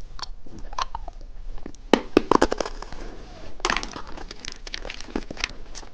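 Candy and its plastic packaging being handled, with sharp clicks and short crinkling crackles. They come in two clusters, about two seconds in and again from under four seconds to about five and a half.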